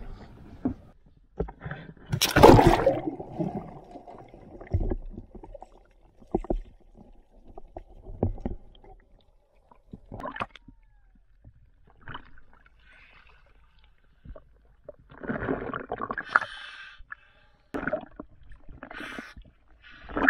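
Sea water splashing, sloshing and gurgling around a camera held at and below the surface, in irregular bursts with small knocks between them; the loudest splash comes about two and a half seconds in.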